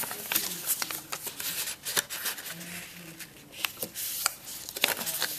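A square of paper being folded by hand: rustling with irregular sharp crackles and taps as the folds are creased and pressed flat against a desk.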